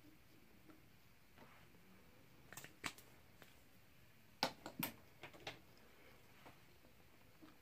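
Sharp little clicks and taps of makeup containers being handled and set down: a few light taps about two and a half seconds in, then a louder cluster of clicks about a second and a half later, over otherwise near-silent room tone.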